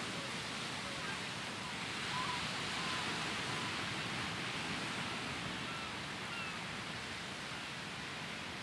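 Steady wash of sea surf, with faint, short bird calls scattered over it.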